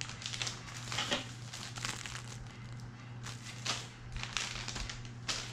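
Plastic soft-bait packages crinkling and rustling as they are handled, in irregular short crackles.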